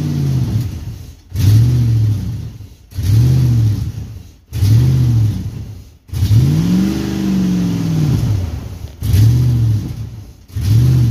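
2006 Dodge Durango engine running rough: it revs up and falls back over and over, about seven surges, nearly dying between each. This is the uneven running of a truck with a hard-starting, crank-no-start fault.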